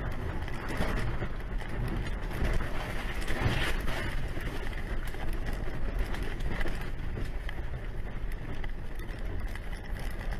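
Vehicle cab noise as it runs off the highway across a grassy median: a steady rumble with many small rattles and knocks from bouncing over rough ground, loudest a few seconds in.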